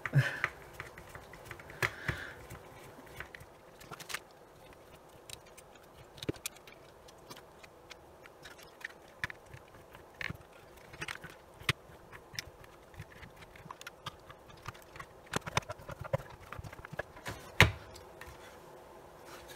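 Irregular small clicks and knocks of plastic case parts and screws being handled and fitted as a FLIR thermal imaging multimeter is put back together, with a screwdriver at work on its circuit board. A couple of louder knocks come a few seconds before the end.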